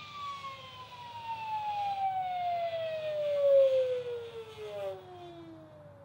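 Electric GooSky E2 RC helicopter spooling down after landing. The motor and rotor whine falls steadily in pitch as the main rotor slows, and it fades out about five seconds in.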